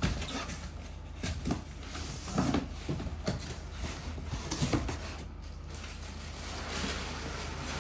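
Cardboard and packing rustling and scraping, with scattered light knocks, as a telescope's optical tube is pulled out of its box; a longer sliding rub builds near the end.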